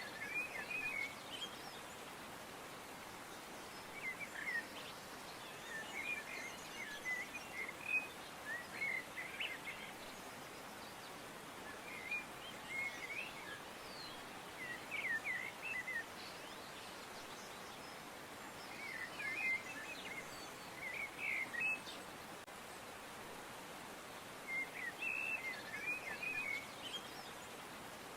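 Songbirds chirping in short bursts of quick notes, one bout every few seconds, over a steady background hiss.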